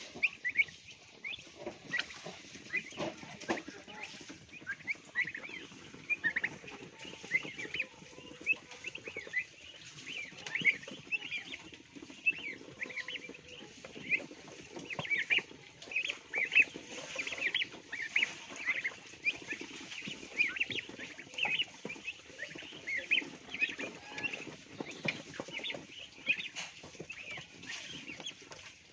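A flock of month-old hybrid turkey poults, a Bourbon Red × Black Spanish cross, peeping continuously in many short high chirps. Frequent small clicks of beaks pecking feed in a wooden trough run underneath.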